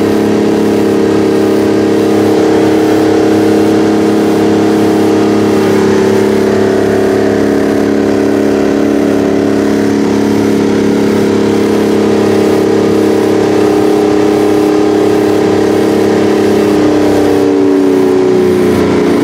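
The Rite 750 Earthquake tractor's 18.1-litre Detroit Diesel 12V92 two-stroke V12 diesel, running loud and steady under plowing load and heard from inside the cab. Near the end the engine speed drops and its pitch falls.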